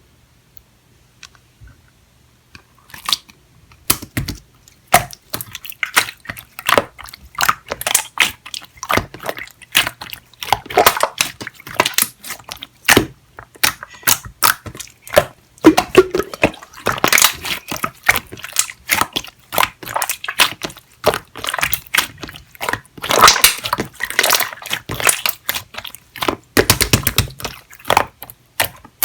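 Clear jelly-texture slime being squished and poked by hand, making dense sticky crackles and wet pops. The sounds start about three seconds in.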